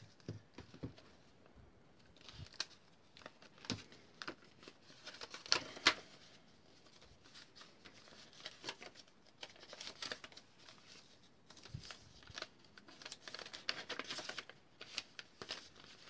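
Paper pages of a handmade junk journal being leafed through and handled: irregular soft rustling and crinkling with scattered short crackles, a few louder ones about six seconds in.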